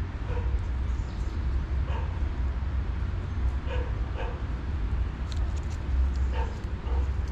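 Kittens mewing: about six short calls spread through, over a steady low rumble.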